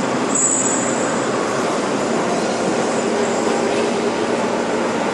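Steady, loud forge machinery noise as a forging manipulator carries a glowing-hot steel ingot out of the furnace, with a brief high squeal about half a second in.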